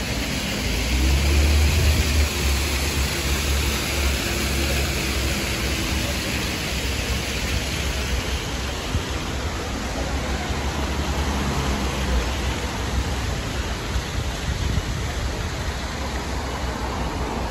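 Steady city street noise from road traffic, with a low engine rumble swelling as vehicles pass, loudest from about a second in and again around ten seconds in.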